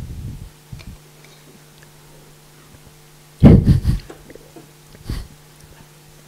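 Steady low electrical hum, with a loud muffled bump about three and a half seconds in and a smaller one about a second and a half later.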